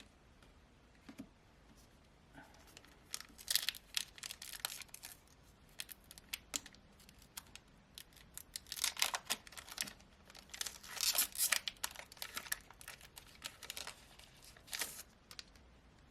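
Foil Pokémon TCG booster pack being torn open and its wrapper crinkled: several bursts of sharp rips and rustling, starting a few seconds in and stopping shortly before the end.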